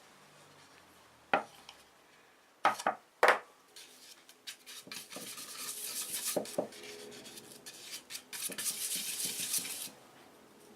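Hard objects being handled: three sharp knocks in the first few seconds, then about five seconds of scratchy rubbing with scattered clicks, which stops near the end. No lathe motor is running.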